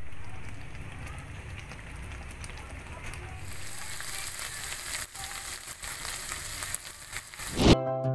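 Thick tomato spaghetti sauce bubbling in a pan, then after about three and a half seconds corned beef frying in oil with a bright, crackling sizzle. Near the end the sound stops on a short loud hit, and plucked-string music starts.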